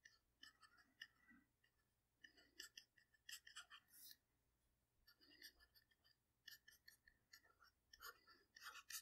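Near silence, with faint scattered taps and scratches of a stylus writing on a tablet screen.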